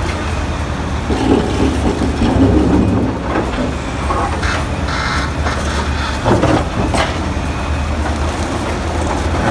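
Caterpillar D8R crawler bulldozer working: its diesel engine runs steadily under load, with metallic clanks and knocks from the machine and tracks, several sharp ones around the middle.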